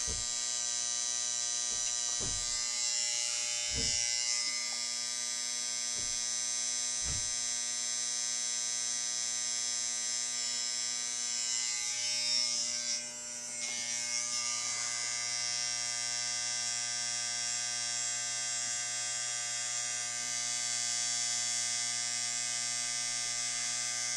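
Electric hair clippers running with a steady buzz while cutting hair, with a few short knocks in the first several seconds and a brief dip in the buzz about thirteen seconds in.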